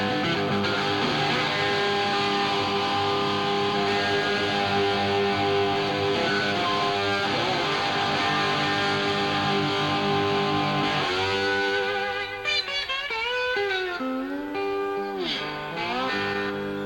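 Live rock band with electric guitar lead, heard from a cassette tape recording of a concert. About eleven seconds in the band thins out and the guitar plays on its own, with several string bends sliding up and down, before the full band comes back near the end.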